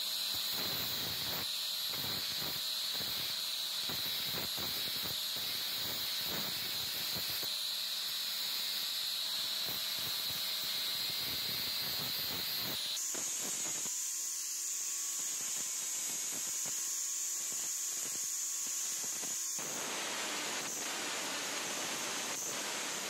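Angle grinder with an abrasive disc running at speed and grinding rust off a steel claw hammer head: a steady high whine over a grinding hiss. The whine jumps suddenly higher in pitch about halfway through, and the grinding noise grows fuller near the end.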